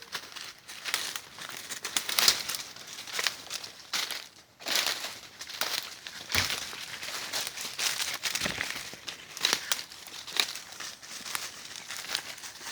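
Footsteps and rustling through dry leaf litter and undergrowth: irregular crackling and crunching, with a short lull about four seconds in.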